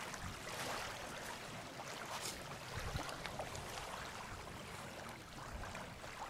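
Outdoor wind and small waves lapping on a gravel lakeshore: a steady, even rush with a few faint clicks.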